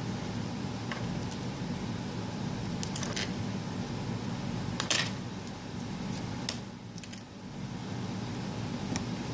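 Light clicks and taps of small tools and phone parts being handled during an iPhone repair, a handful spread out, the sharpest about five seconds in, over a steady low hum.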